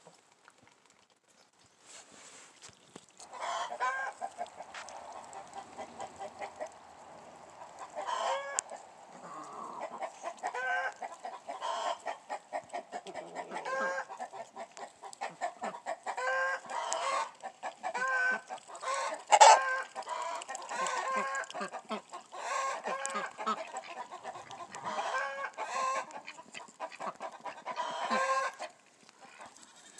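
Chickens clucking: a dense run of short, repeated calls that starts about three seconds in and stops shortly before the end, with one louder call near the middle.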